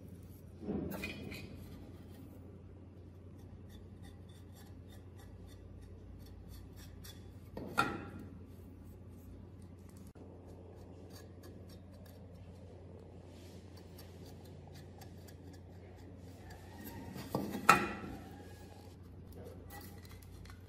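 Hands handling small parts on a wooden workbench: faint rubbing and scraping with scattered light ticks, and three short, louder knocks, about a second in, around the middle and near the end. A steady low hum sits underneath throughout.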